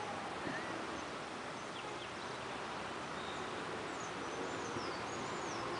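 Steady outdoor background noise with faint high-pitched bird chirps, a short warbling run of them about four seconds in.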